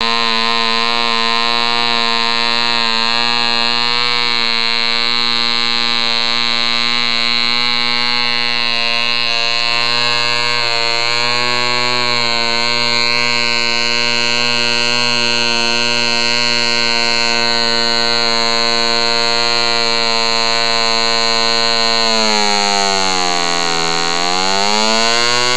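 Vintage Mills P.75 model diesel aero engine, a tiny 0.75 cc single-cylinder compression-ignition engine, running at a steady high speed with a loud, even buzz. A few seconds before the end its pitch sags and then climbs back up.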